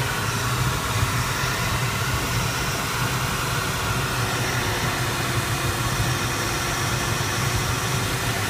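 Steady rush of air streaming over the canopy of an Arcus M glider in flight, heard from inside the cockpit, with a faint steady tone underneath.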